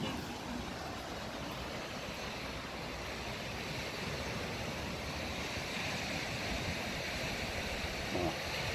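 Steady rushing outdoor noise of wind on the microphone mixed with small waves washing onto a sandy beach, growing slightly louder.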